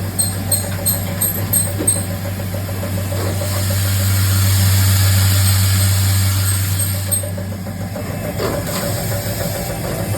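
Key cutting machine running with a steady motor hum, a quick run of short high ticks in the first couple of seconds, then a louder rushing sound of the cutter working that builds through the middle and falls away.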